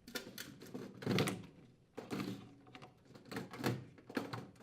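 Furnace condensate drain trap assembly being pulled free and handled: a handful of separate light knocks, clicks and rattles.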